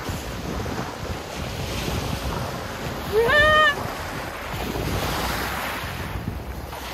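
Wind buffeting the microphone outdoors, a steady rushing noise. About three seconds in, a woman gives one short high cry that rises in pitch and holds for about half a second.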